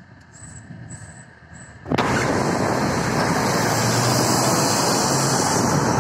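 Rush of wind and traffic noise on the microphone from a moving car. It cuts in suddenly about two seconds in, after a quieter start, and stays loud and steady.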